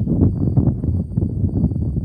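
Wind buffeting the microphone: a loud, irregular low rumble, with a faint steady high whine running through it.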